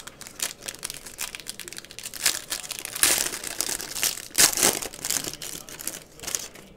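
Silver foil wrapper of a basketball trading-card pack being torn open and peeled back by hand: an irregular run of crinkling rustles, loudest about three seconds in and again a second and a half later.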